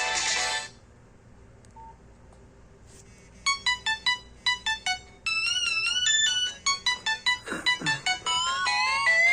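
Nokia ringtones played through a Nokia C2-01's loudspeaker. One tune ends within the first second, and after a pause of about three seconds another begins: a run of short, bright beeping notes with a few held, wavering notes and climbing runs.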